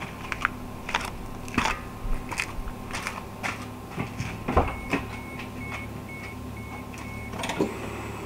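Kei car engine idling through a cheap aftermarket rear-piece muffler: a steady low hum with irregular ticks and clicks. About halfway through comes a quick run of short high beeps lasting a couple of seconds.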